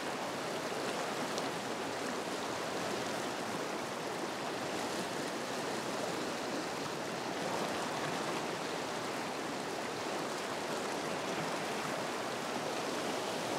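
Fast, shallow river run rushing over rocks in whitewater: a steady wash of running water.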